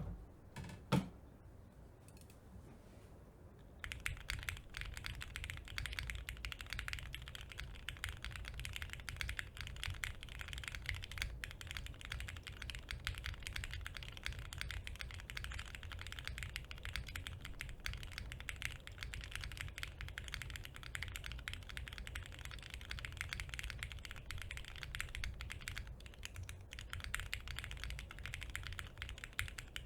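Custom mechanical keyboard with lubed Cherry MX Hyperglide Black linear switches, a half plate and no foam dampening, typed on fast and continuously. A couple of single key clacks come first, and the steady typing starts about four seconds in.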